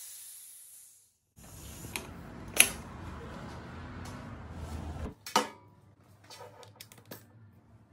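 An air hose is coupled to a small air compressor's quick-connect outlet. A fading hiss of air is followed by noisy handling of the fittings, with a sharp metallic click about two and a half seconds in. After that come a single sharp click and a few light taps as the pneumatic rivet gun is handled.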